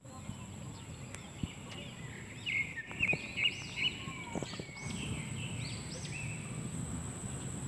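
A small bird chirping, a run of quick arching chirps through the middle, over steady outdoor background noise with a faint high-pitched whine.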